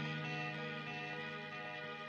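Soft background music from a film score: sustained chords over a held low note.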